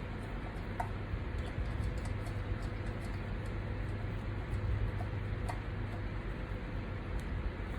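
Faint scattered clicks and light taps of hand handling, over a steady low rumble.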